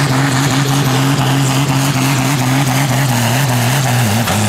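Case IH pulling tractor's diesel engine at full load while pulling the weight sled. It makes a loud, steady high-revving drone that dips briefly in pitch near the end.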